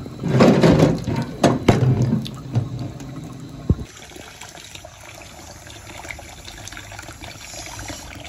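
Tap water running into a plastic blender jug full of rolled oats. It is loud and splashy for the first couple of seconds, with a few sharp knocks, then settles into a quieter, steady flow.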